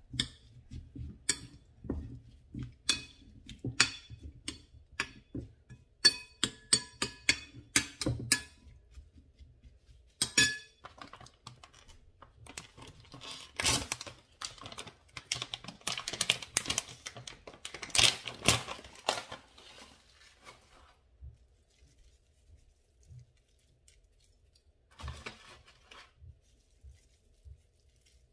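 Metal spoon clinking and scraping against a ceramic bowl as a chopped salad is tossed: a run of sharp clinks, then a denser stretch of clatter, and a brief softer burst a few seconds before the end.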